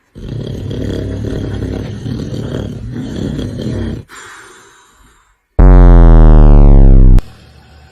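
Loud, rasping snoring for about four seconds, fading off. Then a very loud synthesized tone slides down in pitch for about a second and a half and cuts off suddenly: a cartoon sound effect.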